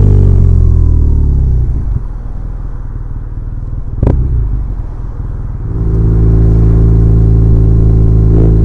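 BMW R1200R air/oil-cooled boxer twin engine slowing down, its pitch falling, then dropping to a quieter low rumble with a single sharp click about four seconds in. It settles into a steady low-rev run from about six seconds.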